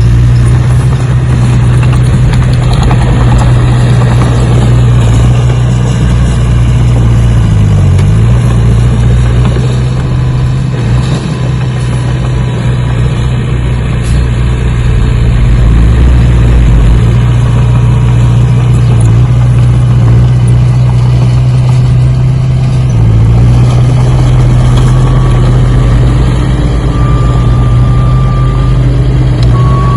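Engine running steadily at a low hum, its pitch sagging briefly about eight seconds in and again about twenty-three seconds in. A faint thin high whine joins near the end.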